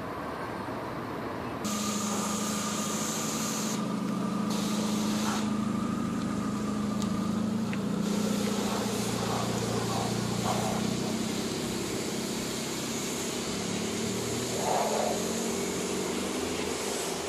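Opel Corsa C GSi's 1.8-litre 16-valve four-cylinder engine running at a steady idle, getting louder a couple of seconds in.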